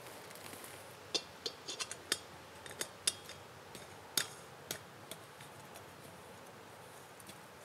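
A string of sharp, irregular clicks and snaps, about a dozen over roughly four seconds.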